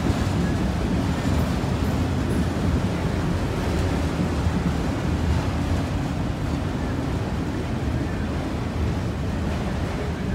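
Freight train of enclosed autorack cars rolling past at a crossing: a steady low rumble of steel wheels on the rails that eases slightly toward the end.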